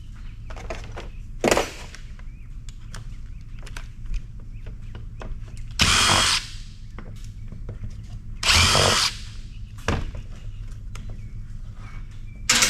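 Electric screwdriver with a square-drive bit whirring in two short runs, each about half a second, about six and eight and a half seconds in, backing screws out. A few sharp knocks of handling fall between.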